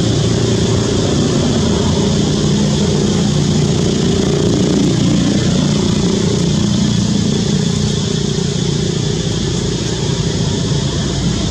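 Steady drone of a running engine, holding a constant pitch without revving.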